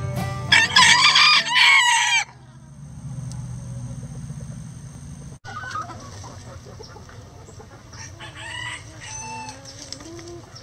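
A rooster crows once, loudly, starting about half a second in and lasting under two seconds. After that, hens cluck and give short calls here and there.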